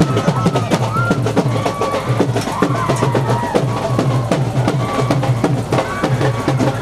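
Music with fast, busy drumming and a wavering melody line over it.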